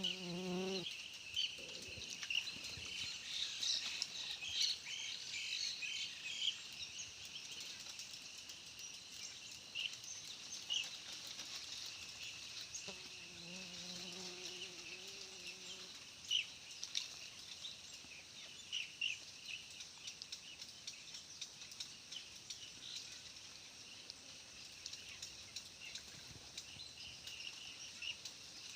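Short scattered bird chirps over a steady high hiss, with a low wavering tone at the start and again for a few seconds around the middle.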